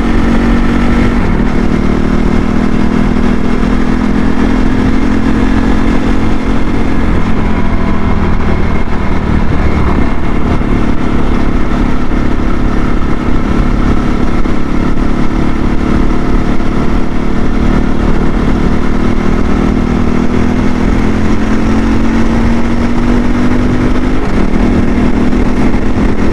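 CSC RX4 motorcycle engine running steadily under way, a new engine in its break-in miles, heard from the rider's helmet mic over a low rush of wind and road. Its pitch climbs slowly near the start and again near the end, then drops suddenly a couple of seconds before the end.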